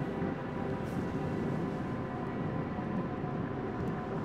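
Steady low rumble of wind buffeting the microphone, with faint sustained drone-like tones running underneath.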